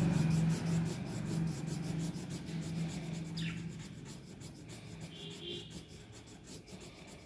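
Felt-tip marker rubbing on paper in quick, repeated back-and-forth strokes as a drawing is colored in. A low hum fades out over the first few seconds.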